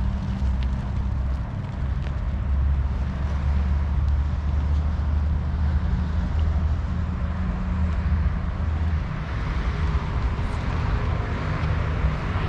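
Outdoor ambience dominated by a steady low rumble, with a fainter even hiss above it and a few faint ticks.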